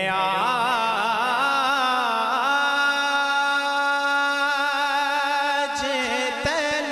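Naat recitation: a solo voice draws out a long, wordless melismatic phrase. Wavering vocal turns in the first couple of seconds settle into a long steady held note, and a few quick ornaments follow near the end.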